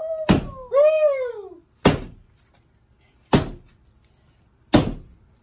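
A wooden board strikes a wall panel four times, about one and a half seconds apart. Each hit is a sharp thwack. A child's drawn-out shout rises and falls just after the first strike.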